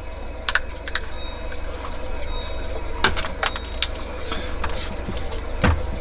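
Handling noise from a refrigerator evaporator fan motor being fitted by hand into its plastic housing: scattered sharp plastic clicks and taps, a few close together around the middle, over a steady low hum.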